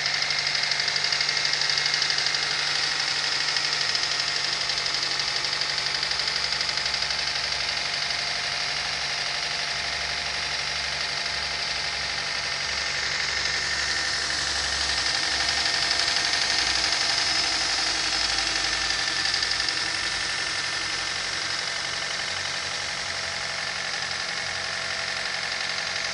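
Honda H22A four-cylinder engine running steadily with a rapid, even knock from the connecting rods, which the owner puts down to worn connecting-rod bushings.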